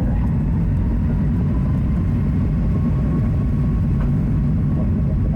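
Steady low rumble of a Boeing 737 MAX 8's CFM LEAP-1B engines and airframe, heard from inside the passenger cabin.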